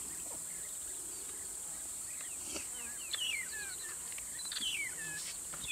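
A steady, high-pitched drone of insects, with a bird's descending whistled calls twice, about three seconds in and again about four and a half seconds in.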